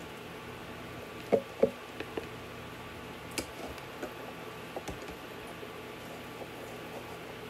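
Soft knocks and taps of noodles and dishes being handled: cooked noodles being moved from a red plastic bowl into a glass bowl of Alfredo sauce, with two louder knocks about a second and a half in and a few lighter taps after.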